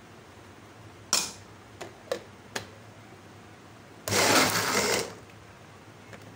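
Ice cubes dropped into a plastic blender jar: one loud clunk, then a few lighter clicks. Near the end the electric blender runs in one short burst of about a second, crushing the ice into the mango lassi.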